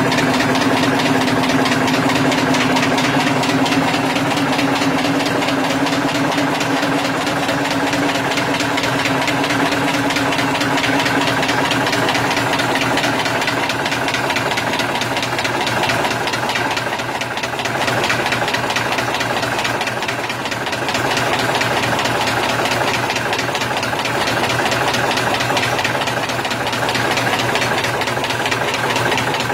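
Welltec SecureFold 4150s pressure sealer running at speed (about 15,000 sheets an hour), feeding sheets from its auto-lift tray with a fast, steady mechanical clatter. A steady hum under it fades out over the first third.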